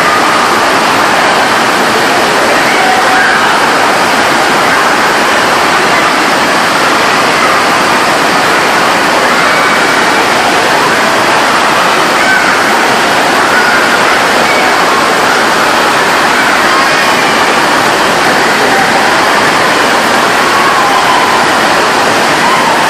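Loud, steady rush of fast-flowing water on a water-park body-boarding wave ride, with faint voices in the background.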